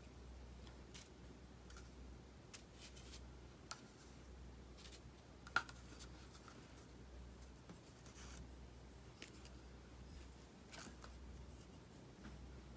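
Near silence: faint room tone with a low hum and a few scattered small clicks, one sharper click about five and a half seconds in.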